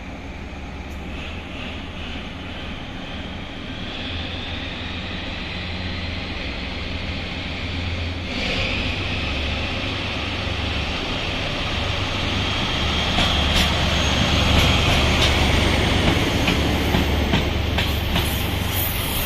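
DE10 diesel locomotive hauling the Maya 34 track-inspection car as it pulls past. Its engine runs steadily and grows louder as it approaches, and in the last few seconds the wheels click over the rail joints.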